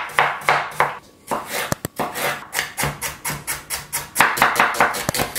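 Chef's knife dicing carrot and parsley root on a wooden cutting board: quick repeated chops, about four to five a second, with a short pause about a second in.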